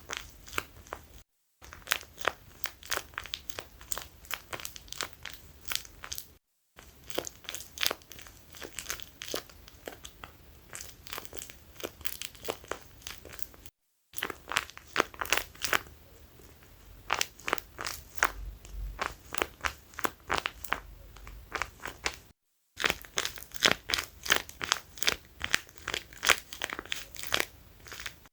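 Squishy toys being squeezed and handled, with dense crinkling and crackling. The sound runs in several stretches that break off abruptly in short silences.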